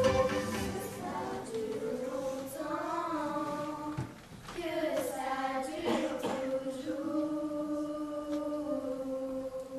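Children's choir singing slow, held notes in unison, with a short break between phrases about four seconds in.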